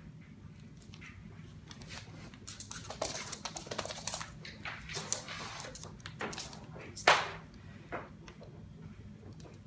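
A cat scrambling after a laser dot: a flurry of scratching, skittering clicks, then a sharp knock about seven seconds in.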